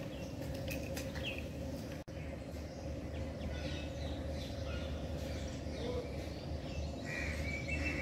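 Outdoor ambience: scattered short bird chirps over a steady low hum, with a longer chirp near the end. The sound cuts out for a moment about two seconds in.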